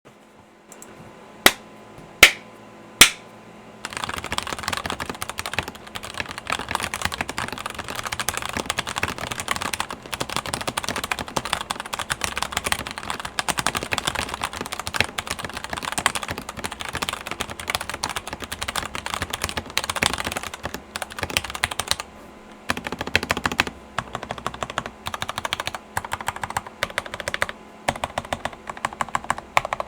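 SteelSeries 6Gv2 mechanical keyboard with Ultraglide Cherry MX Black switches, tape-modded with case foam and lubed, clipped stabilizers, being typed on. Three loud single clacks come in the first few seconds, then fast continuous typing, a brief pause about two-thirds through, and typing again with more separated keystrokes near the end.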